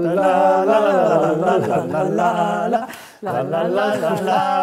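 A voice singing a wordless tune without accompaniment, in long held, wavering notes, with a short break about three seconds in.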